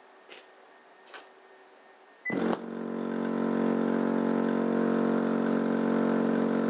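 Crossfire C3 12-inch subwoofer in a sealed box, driven by an amplifier with a steady low-frequency test tone to push air into a second subwoofer used as a generator. It makes a steady buzzing hum with many overtones, which starts abruptly a little over two seconds in after a few faint clicks.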